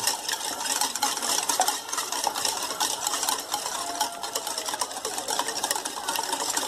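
Two eggs being beaten in a bowl with a utensil: rapid, steady clicking and tapping against the bowl.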